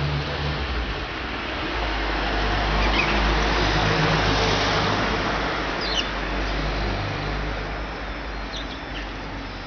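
A vehicle passing along the street, its noise swelling to a peak midway and then fading, over a low engine hum. Sparrows chirp briefly a few times.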